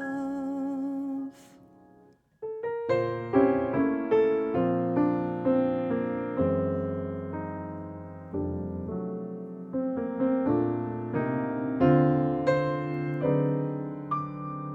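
A held sung note with vibrato ends about a second in. After a brief pause, an acoustic piano plays a solo passage of struck chords, each ringing and decaying.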